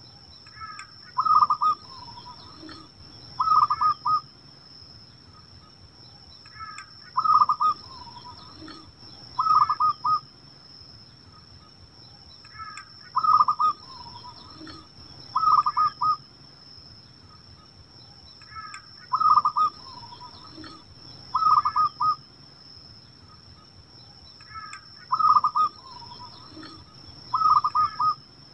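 Zebra dove (perkutut) cooing: bursts of quick staccato coos, two loud bursts about two seconds apart, the whole phrase repeating about every six seconds.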